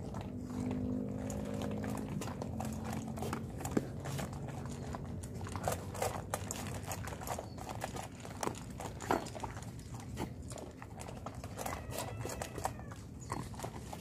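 Dogs crunching dry kibble, a rapid irregular run of sharp crunches and clicks from chewing.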